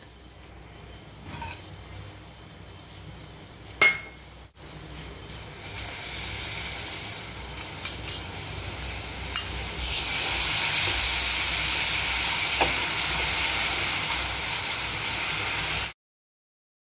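Jaggery and a little water heating in a nonstick kadai, hissing and bubbling as it melts into syrup; the sizzle grows and turns loud about ten seconds in as the syrup boils. A single sharp clink about four seconds in.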